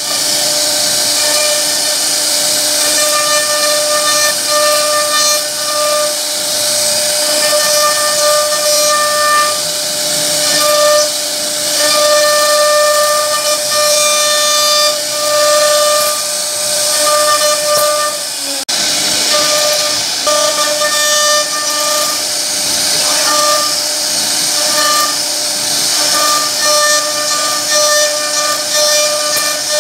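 CNC router spindle carving a wooden bed panel: a steady high whine over the hiss of the bit cutting wood. The whine breaks off and returns again and again as the bit moves through the cuts. A brief dropout comes about two-thirds through.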